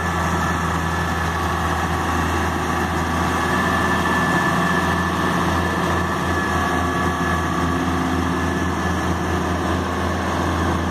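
John Deere 700H LGP crawler dozer's diesel engine running steadily with a deep hum while the machine drives and turns on its tracks; the hum throbs a little more from about six seconds in.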